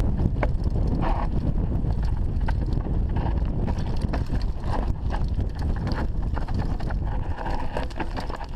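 Mountain bike rolling down a loose, rocky trail: wind buffeting the microphone with a steady low rumble, and tyres crunching over stones with frequent rattles and knocks from the bike.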